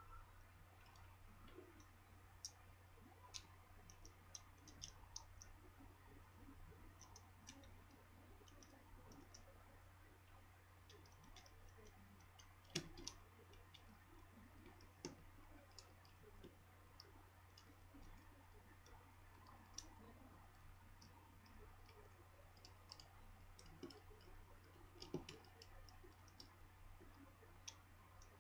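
Faint, scattered clicks and ticks of a small Phillips screwdriver working the tiny outer screws out of a Samsung Galaxy Nexus's housing, with a sharper click about halfway through and another near the end. A steady low hum lies underneath.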